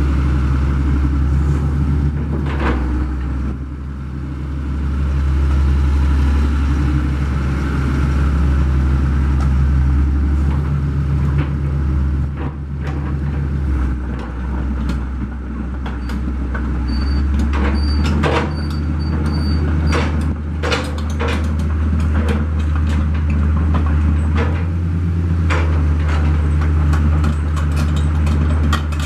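Daewoo DH130 excavator's diesel engine running steadily, its note dropping and rising again a few times. Scattered clicks and knocks come through in the second half.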